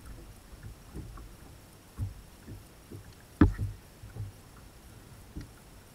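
Scattered low thumps and knocks on a bass boat's deck and hull, picked up by a camera mounted on the deck, the loudest a sharp knock about three and a half seconds in.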